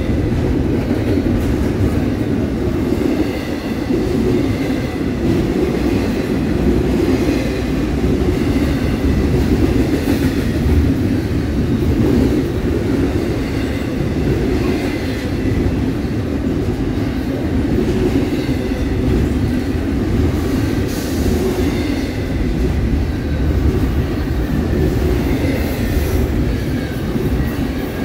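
Double-stack intermodal container train rolling past: a steady, loud rumble of steel wheels on rail as the well cars go by.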